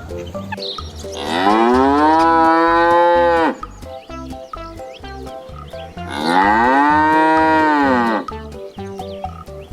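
A cow mooing twice, each moo a long call of about two seconds that rises at the start and drops away at the end. Light background music runs underneath.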